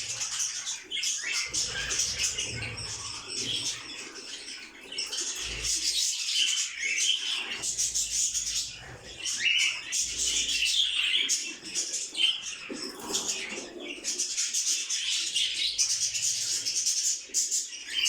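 Chorus of many small caged birds chirping and twittering together, steady and dense without a break.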